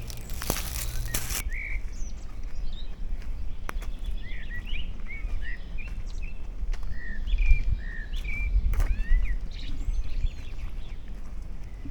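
Small songbirds chirping in many short calls over a low, steady rumble, with a brief rushing noise at the very start.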